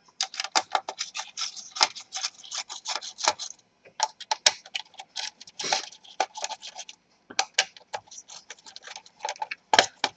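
Small screwdriver backing out the screws that hold the laptop's CPU heatsink and fan assembly to the motherboard: a rapid run of small clicks and scratches with brief pauses.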